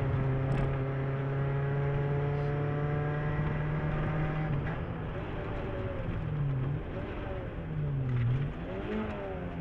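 Suzuki Swift GTI rally car's four-cylinder engine heard from inside the cabin. It holds steady revs for about four seconds, then the revs drop and climb again several times as the throttle is lifted and reapplied.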